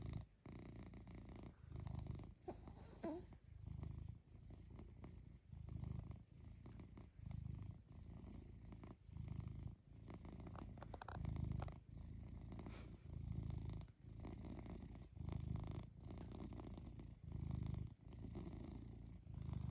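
Long-haired domestic cat purring while its head is stroked, the purr rising and falling in low swells about once a second.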